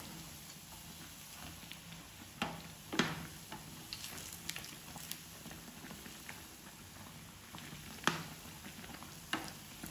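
Bread pakoras deep-frying in hot oil: a steady sizzling and bubbling, with a few sharp clicks of a metal spoon against the pan as oil is spooned over them.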